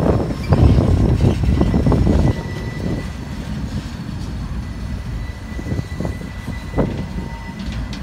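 Freight train boxcars rolling over a road grade crossing: loud rumble and wheel clatter for about the first two seconds, then a quieter, steady rumble with an occasional knock of wheels over the rail joints.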